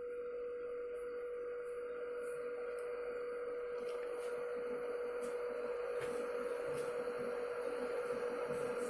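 A 1950-watt electric kettle heating 1.5 litres of water, still well short of the boil. It gives a steady hum with a hiss that grows slowly louder, and faint scattered ticks.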